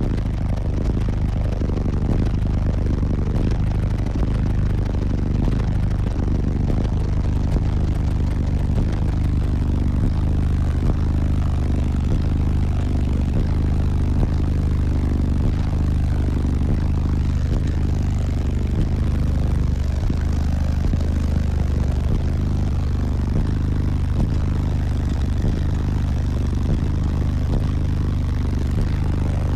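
Six Sundown ZV5 15-inch subwoofers playing loud, deep bass notes inside the vehicle cabin, the low notes stepping between a few pitches, with a rough, rattly edge over the bass.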